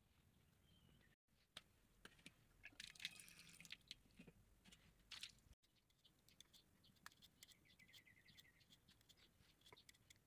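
Near silence with faint, scattered scrapes and clicks; in the second half, a hand vegetable peeler scraping the skin off a potato.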